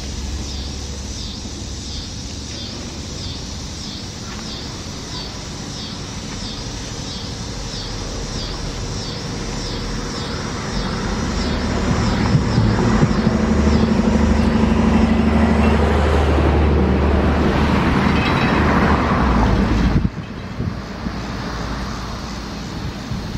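A motor vehicle running close by, growing louder over several seconds and then cutting off abruptly near the end. A faint, rapid, high pulsing sound runs underneath in the first half.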